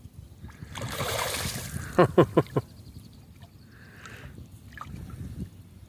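Splashing as a hooked northern pike is led to the landing net beside the boat, then four quick, loud knocks in a row about two seconds in, with softer water noise after.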